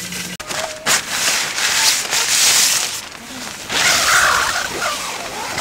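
Crinkly nylon fabric rustling in loud, uneven surges as a down sleeping bag and the tent's inner wall are handled and shifted.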